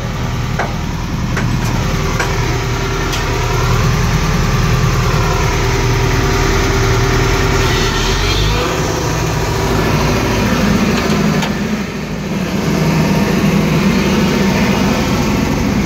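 Sumitomo SH210 excavator's diesel engine idling steadily while it warms up before work. The hum changes about eight and a half seconds in, settling into a higher steady note.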